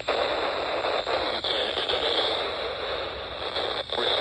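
Radio receiver static: a steady hiss as the NOAA Weather Radio broadcast is lost in the noise of a weak signal, with brief dropouts about a second and a half in and near the end.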